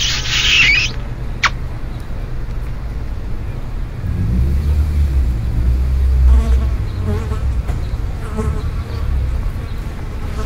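Cartoon sound effect of flies buzzing, over a steady low vehicle engine rumble that swells for a few seconds midway. A short, loud burst of noise opens it.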